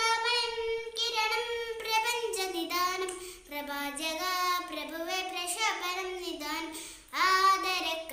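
A young girl singing solo and unaccompanied, in long held, sliding notes with short breaks for breath. She sings louder near the end.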